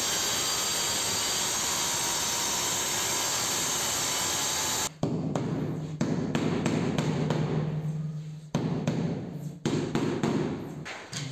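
Handheld angle grinder with a diamond disc cutting through a ceramic tile: a steady, loud grinding that stops abruptly about five seconds in. After that comes a run of short knocks as a floor tile is tapped down into its mortar bed.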